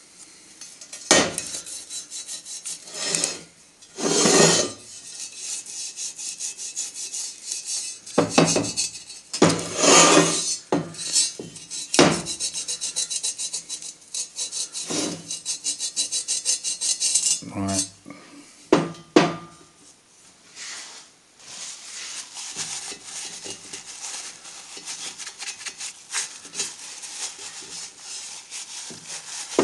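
Hand scrubbing and wiping the aluminium clutch release bearing guide spigot of a bell housing: a run of quick rubbing strokes with louder scrapes now and then, turning to quieter, steadier wiping after about twenty seconds.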